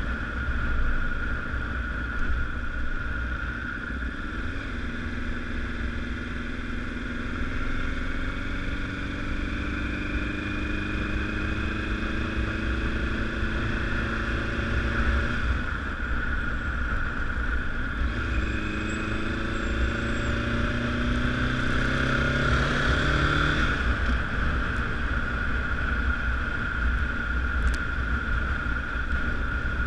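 Honda CBR1000RR sportbike's inline-four engine running under way, its revs climbing slowly and then falling back sharply twice, over heavy low rumbling noise.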